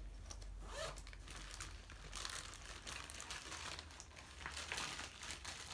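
Soft rustling and crinkling of a tripod's packaging and carry bag being handled, a run of irregular crackles that thickens about two seconds in and again near the end.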